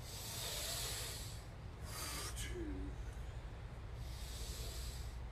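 A man breathing hard while doing squats: three long, hissing exhales about two seconds apart, over a steady low rumble.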